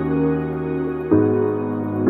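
Slow background music of held, sustained chords, changing to a new chord about a second in.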